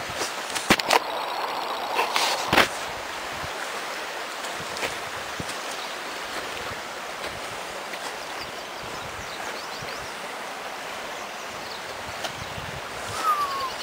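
Steady rush of a flooded creek's water flowing beneath the bridge, with a few sharp knocks in the first few seconds and a short falling whistle near the end.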